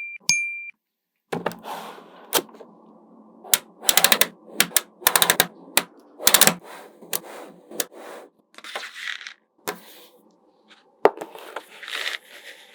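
Small magnetic balls clicking and snapping together, with quick rattling runs of clicks as strings of balls are set into place. A short electronic ding sounds at the very start.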